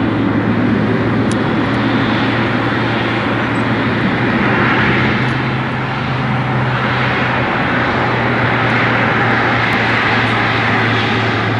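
Boeing 777 freighter's GE90 jet engines running at low taxi power as the plane moves along the runway, a steady jet rumble with a constant low hum.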